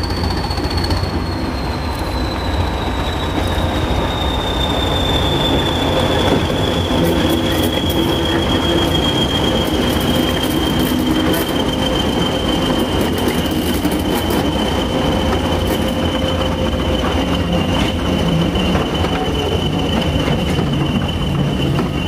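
Train of passenger coaches rolling past behind a Class 20 diesel locomotive: a steady rumble of wheels on the rails, with a high wheel squeal on the curve that slowly falls in pitch, then holds steady.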